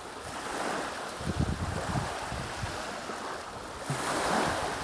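Small lake waves washing onto a sandy shore, swelling near the start and again about four seconds in, with wind rumbling on the microphone in between.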